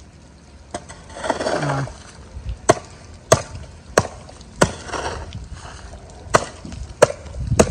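A hoe chopping into wet soil and mud. There are about eight sharp strikes, coming in runs roughly two-thirds of a second apart with short pauses between runs.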